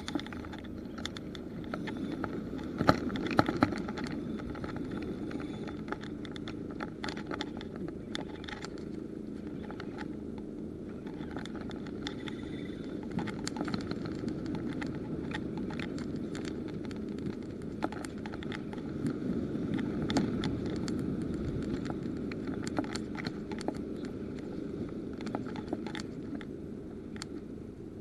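Rapala S-Type 40 spinning reel being cranked to retrieve line, with light irregular clicks and ticks from the reel, over a steady low rush of wind and sea.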